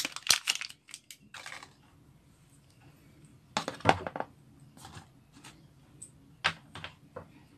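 Plastic wrapping of a phone charger rustling and clicking as hands pull it off, in short bursts: a brief rustle about one and a half seconds in, a louder cluster of clicks about three and a half seconds in, then a few scattered light clicks.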